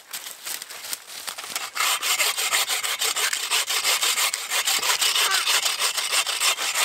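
Folding hand saw cutting through a standing green poplar trunk in quick, even push-pull strokes: the back cut just above the felling notch, through wet wood. The strokes are soft at first and grow louder about two seconds in.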